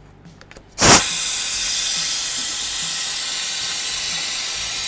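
Air-driven coolant vacuum filler switched on about a second in: a sharp rush of compressed air, then a steady loud hiss as the air flows through the tool and pulls a vacuum on the cooling system.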